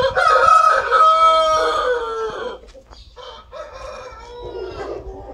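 Aseel rooster crowing once, a loud, long crow of about two and a half seconds that drops in pitch at the end, followed by quieter, shorter calls.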